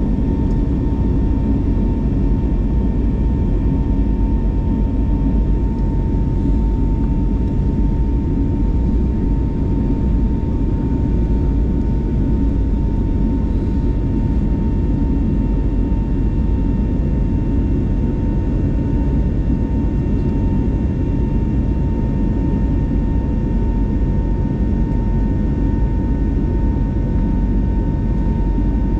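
Airbus A321neo's turbofan engines running at high thrust, heard from inside the passenger cabin: a steady low rumble with a constant whine on top.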